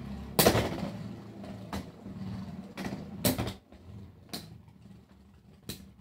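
Two Beyblade X spinning tops battling in a plastic stadium: a loud sharp clash about half a second in, then several more knocks at uneven intervals of a second or so, over a steady whir of the tops spinning on the stadium floor that fades away.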